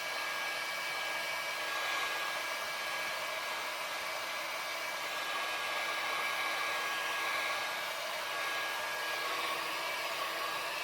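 Electric heat gun running steadily, blowing hot air over a heat-shrink protective sleeve on a window-cleaning pole to shrink it tight. The air hiss is even, with a faint steady hum and whine under it.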